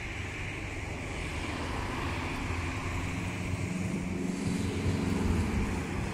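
Steady low rumble and hiss of outdoor background noise, with a low engine-like hum that swells about halfway through and fades near the end.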